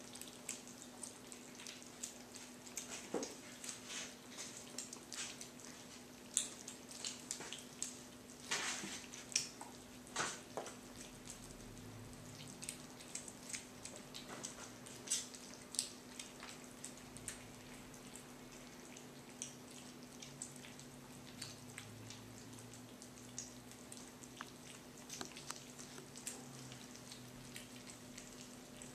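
Several kittens eating wet cat food from plates: irregular, quick wet smacking and lapping clicks, over a steady low hum.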